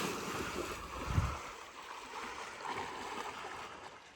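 Rushing, splashing river water, with a brief louder surge about a second in.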